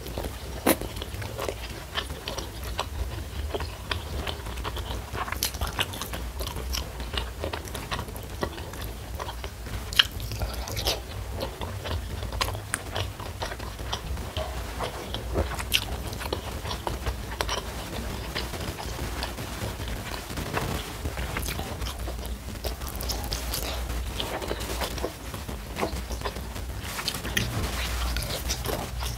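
Close-miked chewing and biting of a hand-eaten meal of rice with fried salted fish, tofu and sambal: frequent crisp crunches and wet mouth clicks. The sharpest crunch comes about ten seconds in.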